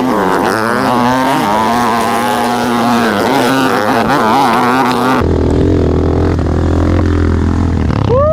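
Trail-bike (dirt bike) engines running on a rough dirt track, the engine pitch rising and falling with the throttle. The sound changes abruptly to a steadier, lower note about five seconds in, and a quick rising rev comes near the end.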